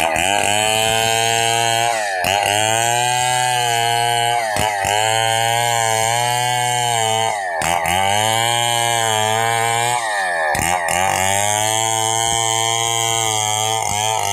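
Stihl two-stroke chainsaw running at high revs while ripping lengthwise through a log. Its pitch dips briefly and climbs back about five times, each time the chain bites harder into the wood and the engine bogs under load.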